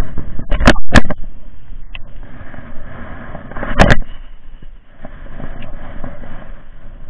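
Handling noise on a body-worn camera as an angler casts a baitcasting rod: two sharp knocks about a second in, a steady rushing noise, and a loud brush of jacket sleeve across the microphone about four seconds in.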